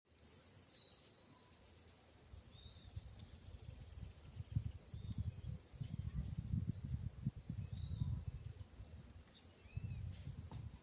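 Forest ambience: a steady, high-pitched insect drone with scattered short bird chirps. Irregular low rumbling builds from about four seconds in.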